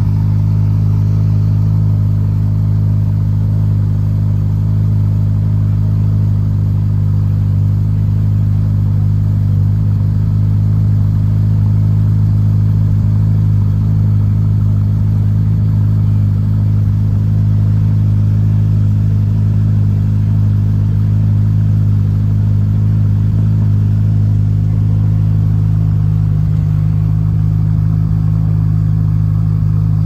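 Ferrari F8 Tributo's twin-turbocharged V8 idling steadily at an even pitch, with no revving.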